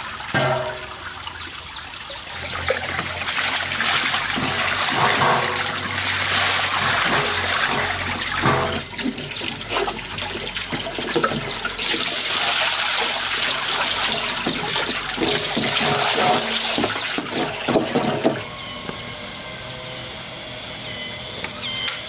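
Water pouring and splashing in an uneven, gushing stream, with scattered knocks. It stops about 18 seconds in, leaving a quieter background with a few high chirps.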